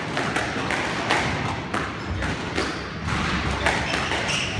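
Squash rally: the ball is struck by rackets and knocks off the court walls, giving a run of sharp thuds at uneven intervals.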